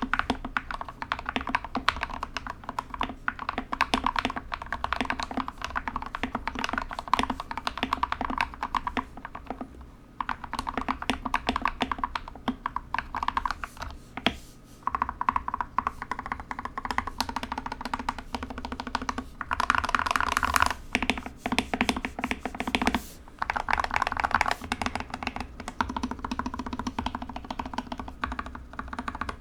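Modded GK61 61-key mechanical keyboard being typed on steadily, a dense run of key clacks with short pauses and a few faster, louder stretches.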